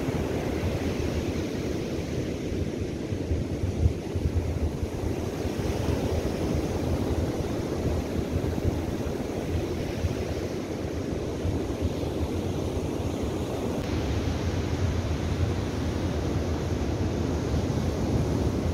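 Ocean surf breaking and washing up a sandy beach, with wind buffeting the microphone as a steady low rumble. A brief thump about four seconds in.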